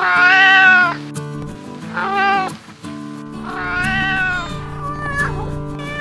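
A domestic cat meowing three times, each call arching up and then down in pitch, the first and last about a second long and the middle one shorter, followed by a brief higher call near the end. Background music with steady held notes runs underneath.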